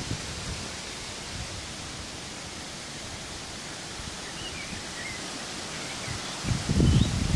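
Outdoor ambience: a steady hiss of wind through trees and bushes, with a few faint bird chirps around the middle. Near the end, wind buffets the microphone with a low rumble.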